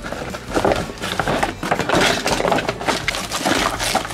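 Cardboard box flaps and a plastic bag of small kit parts being handled and rustled: a dense run of crinkling, scraping and light knocks.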